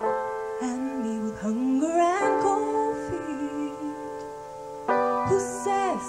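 Live band playing an instrumental passage between sung lines: sustained keyboard chords with a lead line that slides up in pitch, once about a second in and again near the end.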